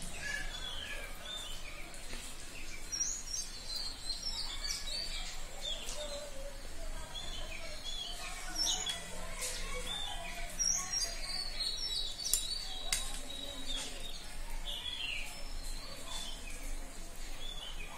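Small birds chirping in many short, high calls, with a few light clicks of a metal spoon against a steel bowl.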